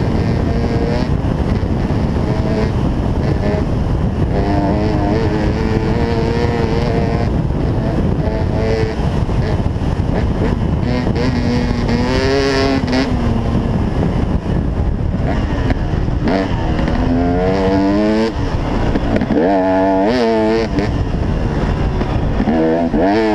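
2008 KTM 300 XC-W single-cylinder two-stroke dirt bike engine running hard under load, its pitch swinging up and down repeatedly as the throttle is worked, over a steady rush of wind and trail noise.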